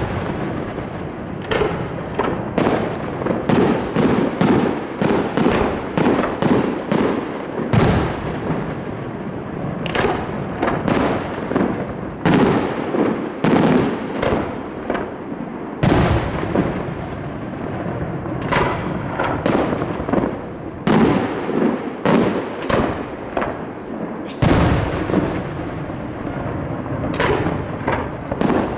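Fireworks display: aerial shells bursting in quick, irregular succession, at times several bangs a second, each trailing off. Heavier, deeper booms stand out three times, about eight seconds apart.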